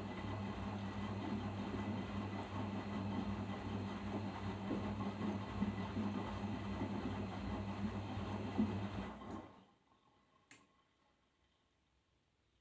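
Arçelik 5083 washing machine in its final rinse: a steady hum with churning and a few soft knocks, which winds down about nine seconds in. Near silence follows, with a single click during the pause.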